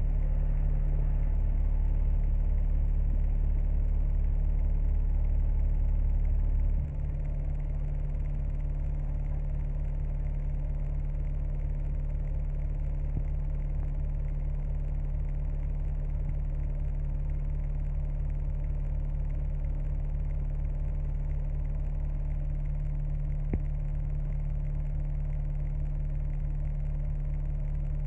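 Double-decker bus engine idling while the bus stands still, heard from inside the upper deck as a steady low rumble. About seven seconds in, the rumble drops slightly and settles to a quieter idle. A single faint tick comes near the end.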